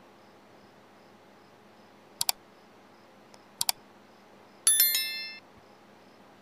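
Subscribe-button animation sound effect: two quick mouse-click double clicks, then a bright bell notification chime that rings and fades within about half a second, over faint steady background noise.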